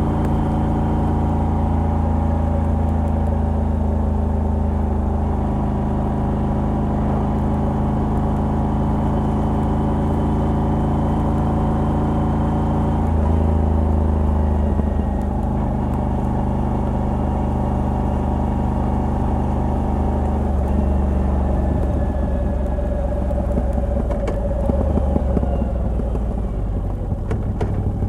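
Moto Guzzi V85TT's air-cooled V-twin, fitted with the stock exhaust and a Mistral decat pipe, running under way on the road. The engine note holds steady, then steps to a new pitch about 5 and 13 seconds in, and turns rougher and more uneven over the last third.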